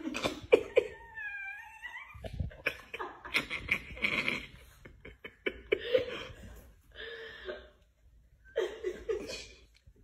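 Chihuahuas vocalising in a series of short bursts, with a wavering, gliding whine about a second in.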